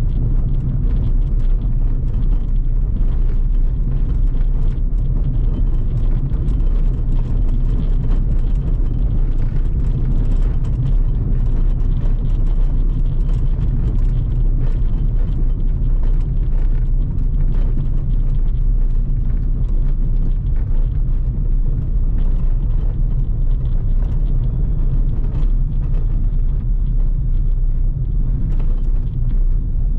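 Steady low rumble of a car's engine and tyres heard inside the cabin, with the tyres running over cobblestone paving and a fine clatter of small clicks throughout.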